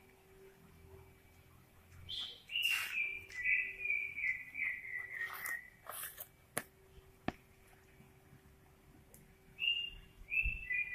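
Clear whistled notes, a run of held tones stepping down in pitch, about two seconds in and again near the end. Two sharp clicks fall in the quiet between them, over a faint steady hum.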